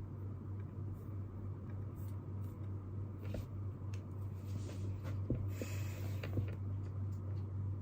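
Quiet room tone with a steady low hum, and small desk-work sounds: a few soft clicks and a brief rustle a little past halfway.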